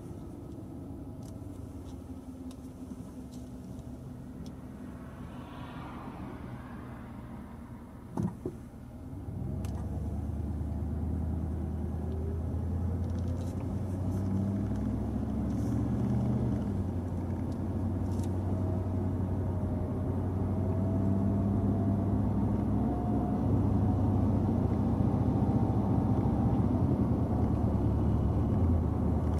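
Car engine and road noise while driving. There is a short double knock about eight seconds in, and after it the engine hum grows louder and stays that way.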